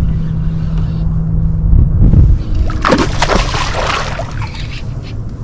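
Water splashing and sloshing beside a kayak for about a second and a half, right after a low thump, over a steady low hum that stops about two seconds in.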